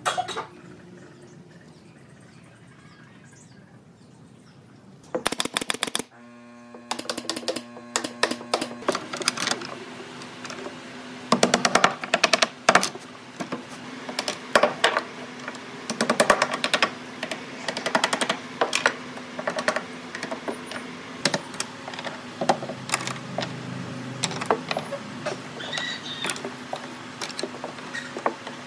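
Rapid sharp clicks and taps in irregular bursts, starting about five seconds in, over a steady low hum.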